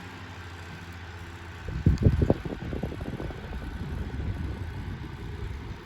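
Unbranded 12-inch box fan running on its low speed setting, with a steady low motor hum. From about two seconds in, an uneven low rumble comes in, loudest at first.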